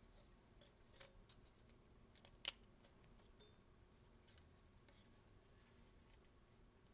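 Near silence with a few faint small clicks and taps, the clearest about two and a half seconds in: a small metal plate being slid and pressed onto the back of a disassembled Sony a7S camera body.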